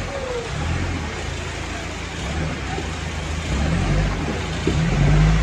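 Modified off-road jeep's engine running at low revs as it crawls through a rocky stream, over the steady rush of flowing water. The engine note grows louder and rises about four seconds in as the driver gives it more throttle.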